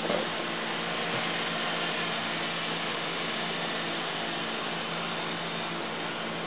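Walkera 4#6 micro electric RC helicopter in flight, its motor and rotor making a steady whirring hum with a hiss of air.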